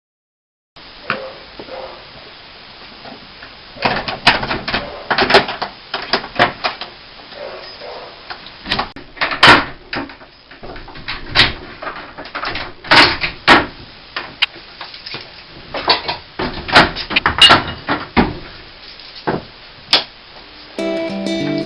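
A run of irregular knocks and clatters, some sharp and loud, spaced unevenly. Guitar music starts just before the end.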